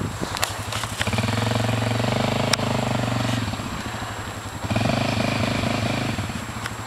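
Suzuki King Quad ATV single-cylinder engine revving under load as it climbs through mud. The engine rises in two surges, about a second in and again near five seconds, easing off between them.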